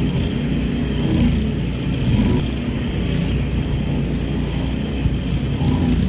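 Engine running steadily under load, a continuous low drone with no change in speed.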